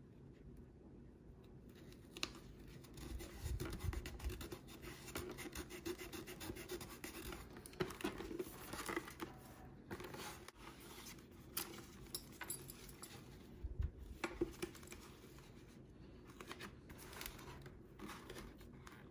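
Scratching and rustling of a motorcycle helmet's fabric liner being handled and pulled against the hard shell, with many small irregular clicks, starting about two seconds in.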